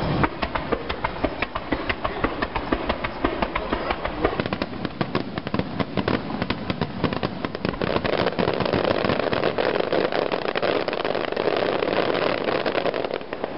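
Fireworks in a rapid barrage: launches and bursts going off many times a second in a continuous rattle of pops. About eight seconds in it thickens into a denser crackling rush as a cluster of gold shells breaks.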